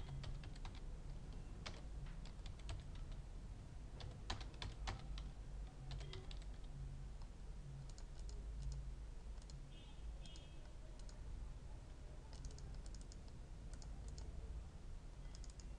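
Computer keyboard typing: sparse, irregular keystrokes over a low steady hum.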